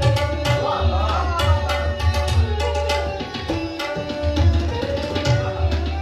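A sarangi bowed in a sliding melody, with tabla accompaniment. The tabla plays quick, dense strokes over deep, resonant bass strokes from the larger drum.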